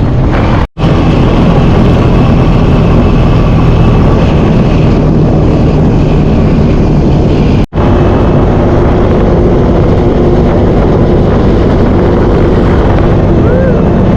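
Quad bike engine running steadily while being ridden. The sound cuts out briefly twice.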